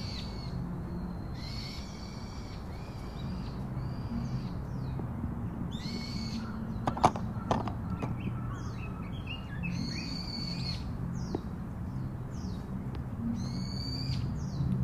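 Birds calling: a repeated high call with several tones about every second or two, with short downward chirps between, over a steady low rumble. A couple of sharp clicks come about seven seconds in.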